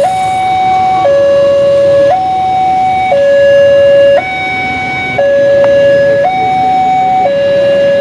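Railway level-crossing warning alarm of a LEN crossing sounding through its TOA horn speaker. It is a steady two-tone hi-lo call, switching pitch about once a second, warning of a passing train.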